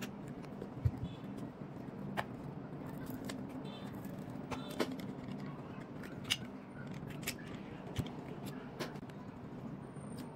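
Faint, scattered clicks and small plastic taps, a few seconds apart, as a plastic opening pick is worked into an iPhone 11's screen seam and a metal screen-separator clamp is handled and loosened, over a steady low hum.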